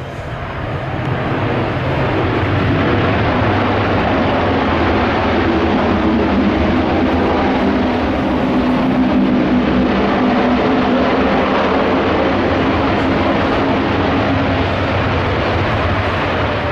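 Boeing 787-8 Dreamliner's two GEnx jet engines running at high power as the airliner rolls down the runway on its takeoff run: a steady, loud jet noise that swells over the first couple of seconds and then holds, with a low hum under it.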